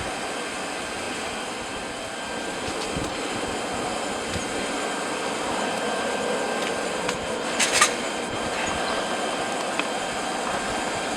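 Lump-charcoal forge running with forced air, a steady rushing hiss as the railroad spike heats in the fire. A brief metallic clatter comes about two-thirds of the way through.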